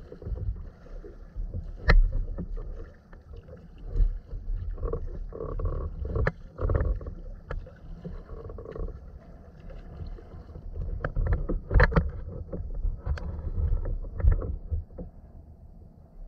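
Sea kayak being paddled through choppy water: paddle strokes splashing, with water slapping the hull and sharp knocks against it every second or two, over a low rumble.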